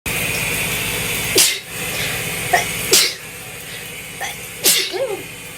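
A person sneezing three times, each sneeze preceded by a short pitched intake of breath, over the steady hiss of running shower water. The water hiss drops quieter about halfway through.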